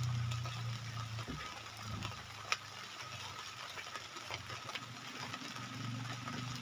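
Light drizzle pattering on a plastic tarp over a low, steady engine-like hum, with one sharp click about two and a half seconds in.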